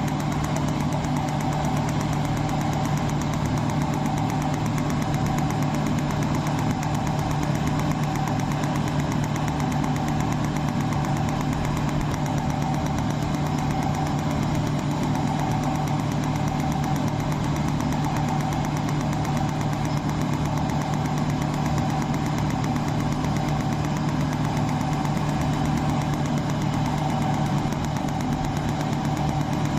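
Mold-repair laser welding machine running with a steady, unchanging hum.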